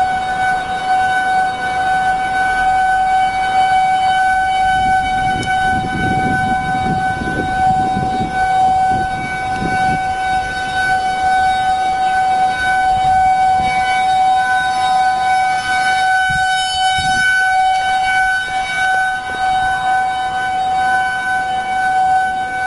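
Outdoor tornado warning siren sounding a steady, unwavering tone. Low rumbling gusts of wind hit the microphone about five to ten seconds in and again briefly near seventeen seconds.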